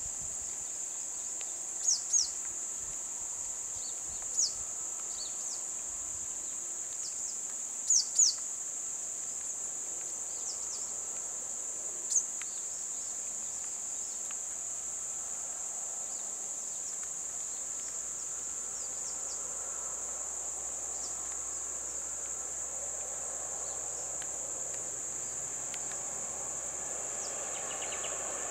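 Steady high-pitched insect drone from cicadas or crickets, with a few short falling chirps in the first half, some in pairs.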